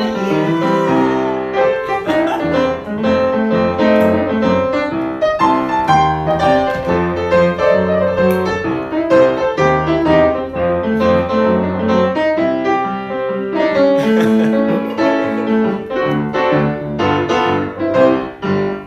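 Upright piano played live: chords and a melody over low bass notes, struck continually.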